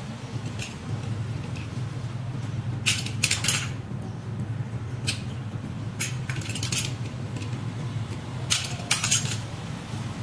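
Sharp metallic clicks and snips from cutters cutting off wiring on an electric scooter during a controller swap. The clicks come singly and in quick clusters, about half a dozen groups over a steady low hum.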